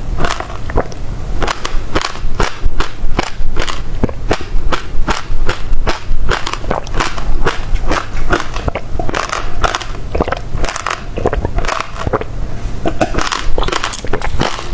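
Close-miked chewing of passion fruit, the seeds crunching in quick, irregular sharp clicks.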